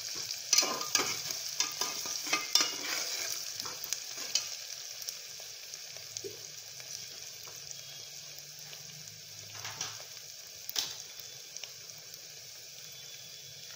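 Onions frying in oil in a pan with a steady sizzle, as they go from red to brown. A spatula scrapes and knocks against the pan over the first few seconds and once more near the end.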